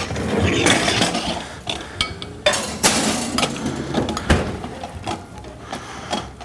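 Wire potato masher knocking and scraping against a ceramic casserole dish as cooked winter squash is mashed, a series of irregular clinks and knocks.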